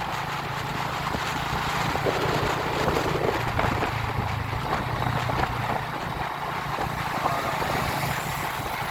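A vehicle travelling along a road: its engine runs steadily under a haze of road and wind noise.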